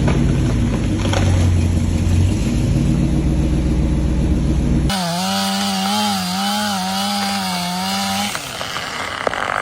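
Chainsaw running. About five seconds in, the sound cuts abruptly to the saw at high revs, its pitch wavering as it cuts, then dropping away near the end.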